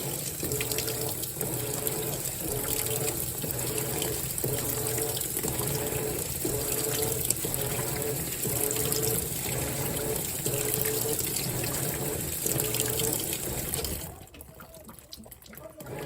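Whirlpool WTW4815EW1 top-load washer filling with water while its single-action agitator strokes in a steady rhythm, roughly once a second. Both cut off suddenly about two seconds before the end, then start again.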